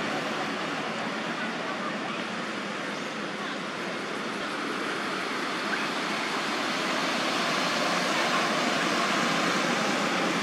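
Steady, even rushing background noise with no distinct events, the kind of outdoor ambience heard in a park.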